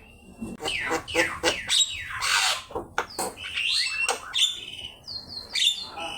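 Javan myna singing a rapid, varied chattering song: quick downward-sliding notes mixed with harsh noisy calls and a few short held whistles.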